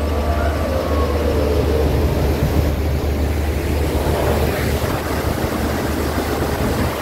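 Steady rushing noise with a heavy low rumble: wind buffeting the microphone on a moving open-air amusement ride.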